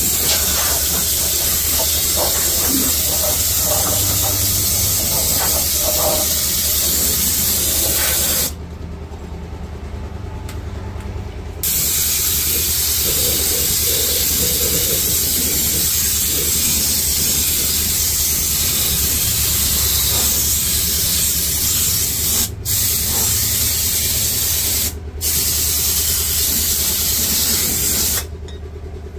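Compressed-air spray gun hissing steadily as it sprays rubberised anti-rust underbody coating, with a low steady hum beneath. The spray stops for about three seconds about eight seconds in, cuts off briefly twice later, and stops again near the end.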